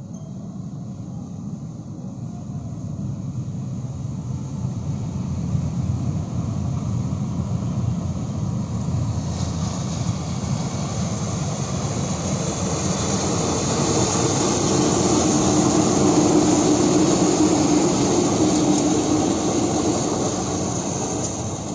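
Two diesel-electric locomotives running coupled in tandem approach and pass: a steady engine rumble grows louder, with wheel-on-rail noise rising about halfway through and peaking a few seconds before the end, then easing off.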